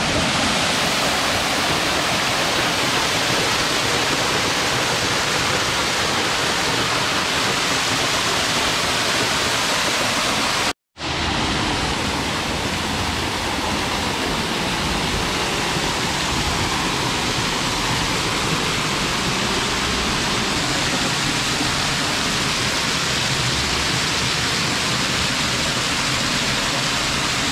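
Waterfall rushing: a loud, steady noise of falling water, broken by a brief gap about eleven seconds in.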